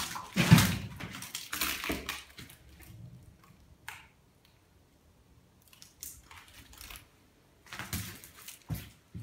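Footsteps crunching and scuffing over fallen plaster and debris on a floor, in uneven steps with a sharp knock about half a second in. They pause midway, then a few more steps come near the end.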